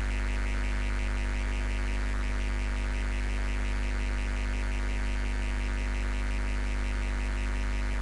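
Steady low electrical hum with a fine buzzing hiss above it.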